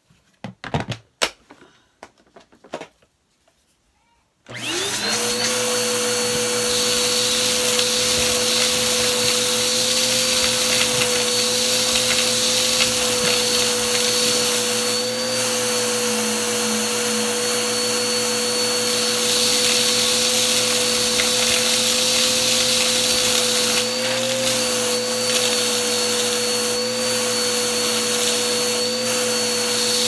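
A few knocks, then about four and a half seconds in a Bissell upright vacuum cleaner switches on. It spins up quickly to a steady motor whine with a high tone on top while its hose sucks up a pile of dirt and grit.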